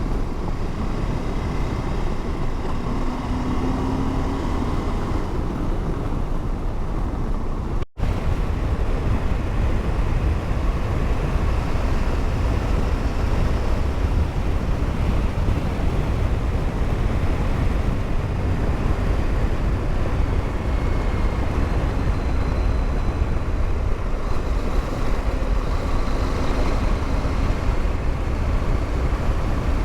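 Motorcycle engine running while riding, with steady wind and road noise picked up by an in-helmet mic. The sound cuts out briefly about eight seconds in.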